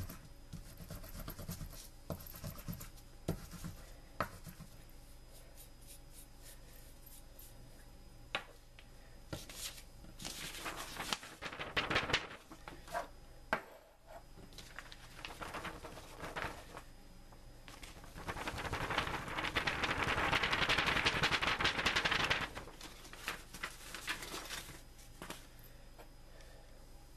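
A battery scraped and pressed over crushed match-head powder on a sheet of paper, with scattered taps and paper rustling. A few seconds of steady, hissing scraping about two-thirds of the way through is the loudest part.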